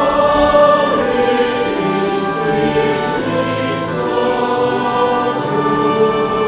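Choir singing a sustained hymn with instrumental accompaniment and low bass notes, the chords changing every second or two.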